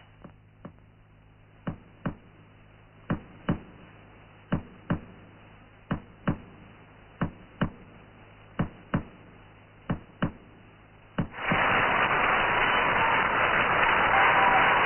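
Sharp knocks in pairs, the two about half a second apart, repeating about every second and a half for some eleven seconds. Then the loud, even noise of a crowd in an arena comes in suddenly.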